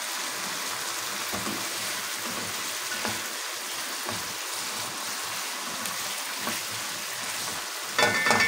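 Tomato and spice masala sizzling in oil in a nonstick karahi as a spatula stirs through it, with a few light scrapes and a brief louder knock near the end.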